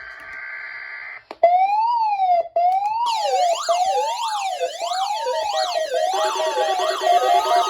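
Weather radios going into alert for a Required Weekly Test. The steady data tones of the alert header end about a second in. An electronic siren alarm then starts wailing up and down, more sweeping siren tones join about three seconds in, and a pulsing beep tone joins near six seconds in.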